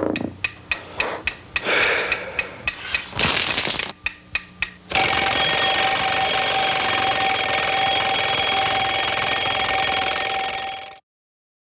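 A mechanical dial timer ticks, about three ticks a second, with two short hissing rushes among the ticks. About five seconds in, its alarm bell starts ringing loudly and steadily, then cuts off abruptly about six seconds later.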